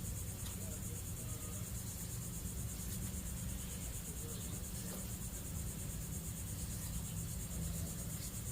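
Crickets chirping steadily in a fast pulsing trill over a low steady hum, with a few faint ticks.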